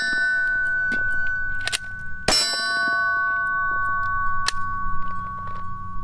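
Gunshots hitting steel targets: sharp cracks, the strongest about two seconds in and another near the middle, each leaving the steel plate ringing with a clear metallic tone for several seconds.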